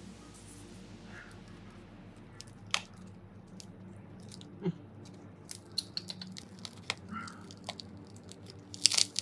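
Small sharp clicks and crunching handling noises at irregular intervals, growing more frequent in the second half with a cluster near the end, over a steady low hum.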